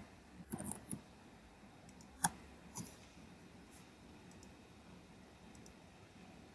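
Faint, scattered clicks of a computer keyboard and mouse: a few keystrokes, with one sharper click a little over two seconds in, over quiet room tone.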